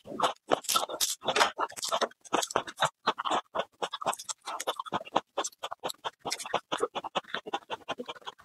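Close-miked crackling and crunching of raw garlic: the dry papery skins of a garlic head crackle and rustle as they are peeled with a small knife, mixed with crunchy chewing of raw garlic cloves. A dense, uneven run of short crackles.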